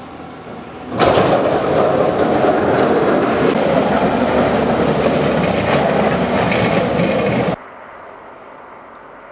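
Heavy dump truck with a front snowplow passing close by: loud, steady engine and road noise that starts suddenly about a second in and cuts off abruptly after about six and a half seconds.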